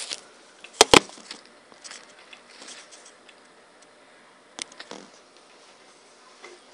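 Two sharp clicks in quick succession about a second in, then scattered light knocks and rustles of handling, with one more click about four and a half seconds in.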